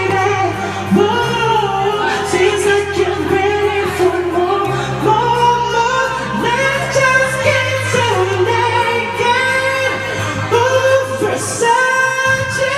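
Karaoke: a man singing into a microphone over a pop backing track, amplified through the room's speakers, with a bass line moving from note to note.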